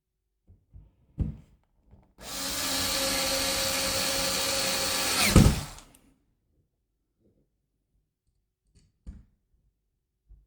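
Power drill running steadily for about three and a half seconds, then a sharp knock as it stops; a few light knocks of handle fitting before and after.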